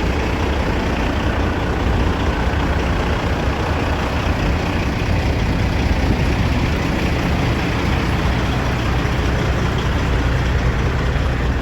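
Heavy truck diesel engine idling: a steady low running sound, with no change over several seconds.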